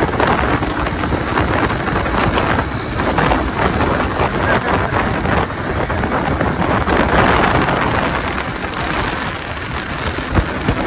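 Wind rushing over the microphone of a moving motorcycle, with the bike's engine and road noise underneath.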